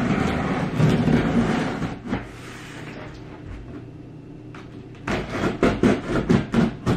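Scissors cutting open the packing tape on a cardboard shipping box: a scraping rasp of blade on tape and cardboard for the first two seconds, then a run of short sharp clicks and snips, about four a second, near the end.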